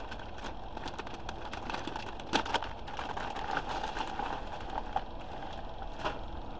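Black plastic mailer bag crinkling and crackling as it is handled and opened and a synthetic braided wig is pulled out, with irregular sharper crackles, the loudest about two and a half seconds in.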